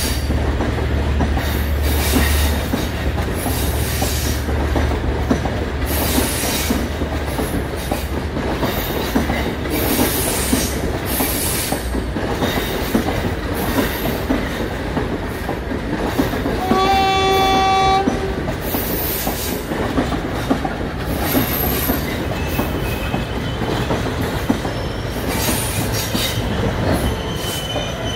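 Passenger train coaches rolling past with a steady rumble and wheel clatter and repeated high wheel squeal. About two-thirds of the way through, a train horn sounds once for about a second.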